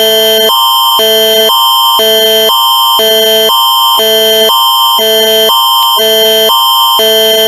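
Canadian Alerting Attention Signal (the Alert Ready tone): a loud electronic alert switching between a higher and a lower chord every half second over a steady high tone, ending abruptly.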